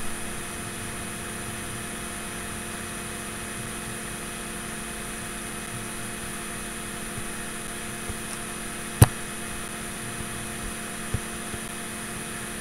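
Steady electrical hum with a faint high whine. A single sharp click comes about nine seconds in.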